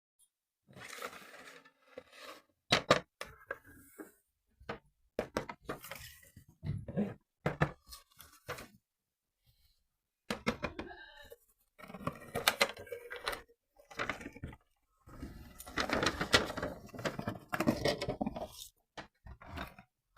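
Toy car box and packaging being handled during unboxing: irregular scrapes, rustles and sharp knocks, with short pauses between them.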